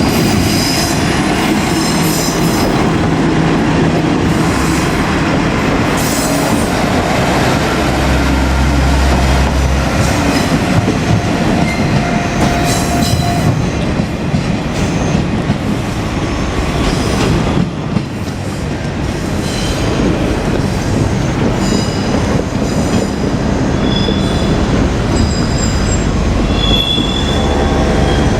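Diesel railcar train running past close by, rumbling on the rails with high wheel squeals coming and going.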